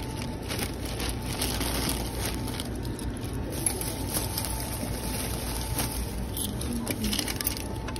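Car travelling, a steady low rumble of road and engine noise heard from inside the cabin.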